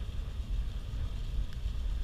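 Wind rumbling against the microphone of a camera on a moving bicycle, a low uneven buffeting with a steady high hiss above it.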